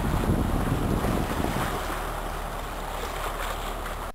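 Wind buffeting the microphone over the rush of water along a sailboat's hull as it sails under way, a steady rumbling noise that cuts off suddenly at the end.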